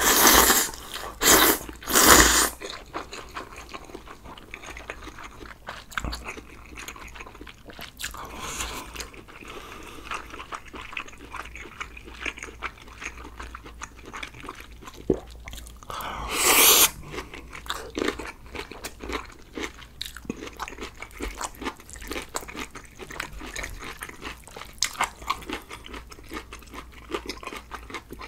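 Close-miked mukbang eating sounds: steady chewing and crunching of stew, rice and kimchi, with a few louder, noisier mouth sounds near the start and again about halfway through.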